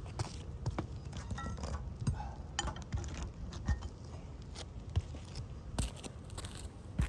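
Footsteps and light knocks and scuffs on an asphalt shingle roof, irregular, about one or two a second, over a steady low rumble.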